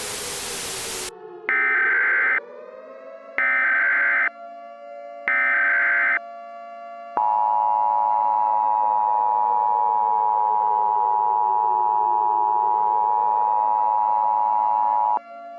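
Emergency Alert System alert tones: a second of static, then three short screeching SAME header data bursts about a second apart, then the steady two-tone EAS attention signal held for about eight seconds before it cuts off. A low synth drone slowly sliding down and back up in pitch runs underneath.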